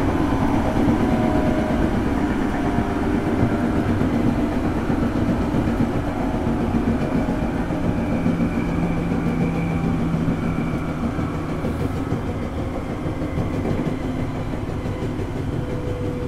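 JR East 205 series electric train running between stations, heard from inside the passenger car. A steady rumble of wheels on rail carries faint whining tones and slowly gets a little quieter.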